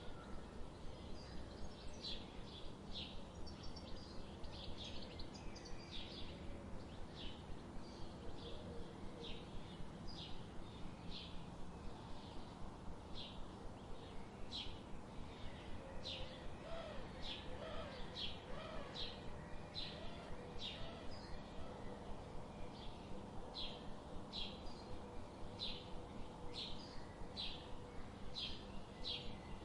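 Wild songbirds chirping, short high notes repeated about once or twice a second, over a steady low hum of background noise.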